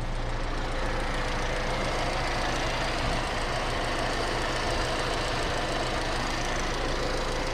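Car engine idling steadily, with a light rapid ticking from the fuel injectors. The accessory belt runs without any squeal or whistle.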